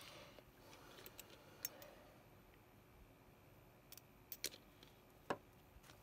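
Near silence broken by a few light, sharp clicks and taps of small tools on the PCB and bench during hand-soldering work, the sharpest about five seconds in.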